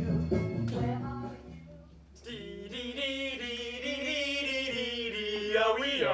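Recorded music fading out, then a man singing unaccompanied, holding long wavering notes from about two seconds in.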